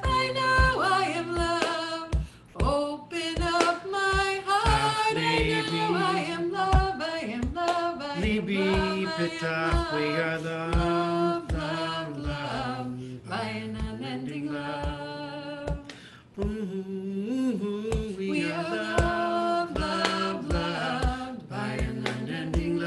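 Singing of a chant melody with musical accompaniment and a steady beat; the voice drops out briefly twice.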